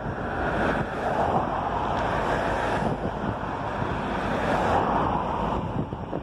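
Norfolk Southern freight train of tank cars rolling by below, a steady noise of wheels on rail that swells twice, mixed with wind noise on the microphone.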